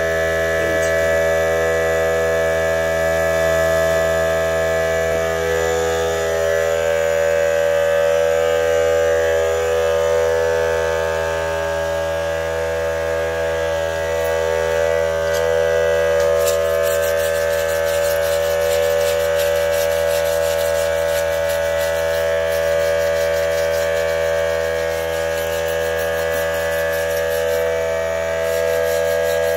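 Steady machine hum made of several fixed tones that never change in pitch or level, with faint fine crackling joining in about halfway through.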